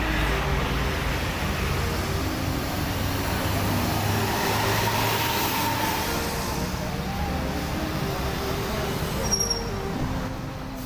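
Diesel engines of intercity coaches running as the buses drive slowly past at close range, over steady street-traffic noise. A brief high-pitched tone sounds about nine seconds in.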